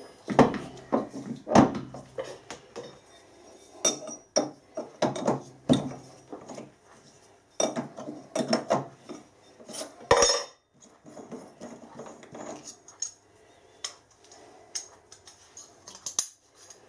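Scattered metallic clinks, knocks and clatter of tools being handled: a C-spanner loosening the nut of a lathe's ER collet chuck, and the collet and slot drill being taken out.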